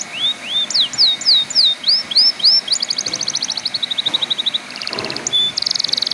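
Canary singing a varied song: a run of quick whistled notes sweeping up and down, then fast rapid-fire trills through the middle and near the end.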